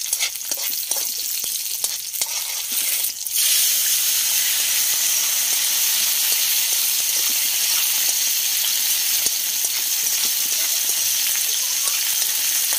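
Chopped aromatics sizzling in hot oil in a wok, with light clicks of stirring. About three seconds in, the sizzle suddenly jumps to a louder, steady hiss as wet shellfish go into the pan, and it carries on while they are stirred.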